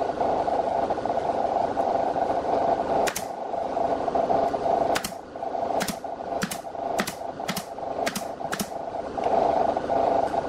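Pneumatic nail gun firing into plywood: one shot about three seconds in, then seven more in quick succession, about two a second. A steady mechanical hum runs underneath.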